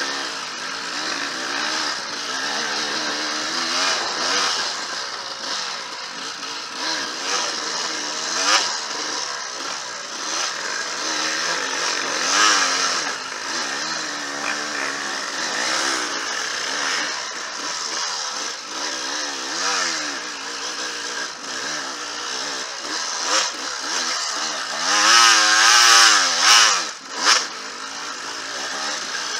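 Dirt bike engine under constant throttle changes on an enduro trail, its pitch rising and falling continuously. Near the end it gets louder and higher for about two seconds.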